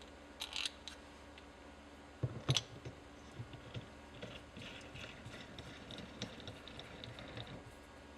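Small clicks and scrapes of a tight-fitting shift knob being worked down onto a manual gear shifter, with a sharper knock about two and a half seconds in, then a run of light scratchy clicks.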